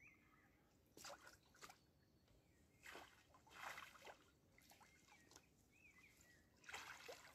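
Faint, scattered splashes of a hooked pike thrashing at the water's surface as it is played in to the bank, with faint bird chirps between them.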